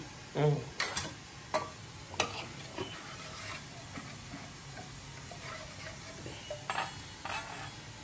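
A metal spoon stirring a thick batter in a stainless steel bowl, with several sharp clinks of the spoon against the steel.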